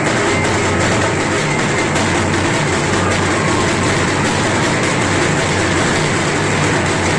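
A loud, steady roar from a packed festival crowd, mixed with fireworks spraying sparks and crackling rapidly throughout.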